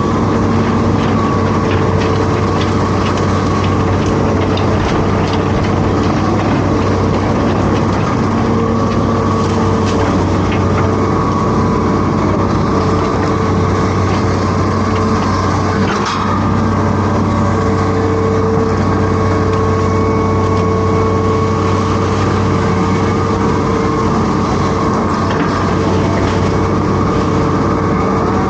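Hitachi Zaxis 210F amphibious excavator's diesel engine running steadily, with a single short knock a little past halfway.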